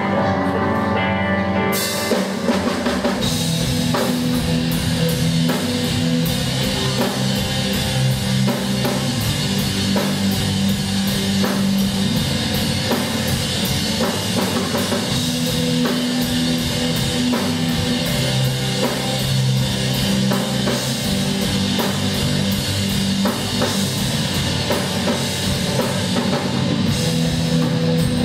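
Loud rock music: held keyboard chords at first, then a full drum kit with cymbals comes in about two seconds in and drives on steadily with bass and guitar.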